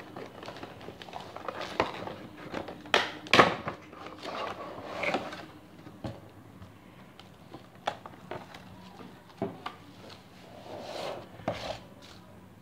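Cardboard Funko Pop box and its clear plastic tray being handled and opened: irregular rustling, crinkling and light clicks and knocks, loudest about three seconds in and again near the end.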